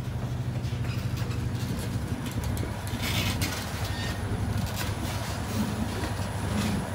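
Freight train of covered hopper cars rolling past at close range: a steady low rumble of steel wheels on the rails, with a brief hissing rush about three seconds in.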